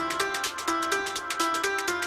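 Electronic dance music: a fast repeating pattern of short synth notes stepping up and down, over quick, ticking percussion.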